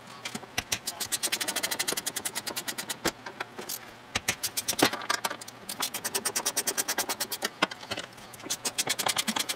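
Hand ratchet wrench clicking rapidly, about ten clicks a second, in three runs with short pauses, as the hinge bolts of a truck door are turned out.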